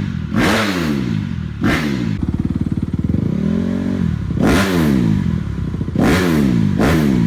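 2015 Honda CRF250R's single-cylinder four-stroke engine being revved in quick throttle blips, the pitch dropping back after each. In the middle it is held at a steady rev that rises slightly, then cuts back before more sharp blips.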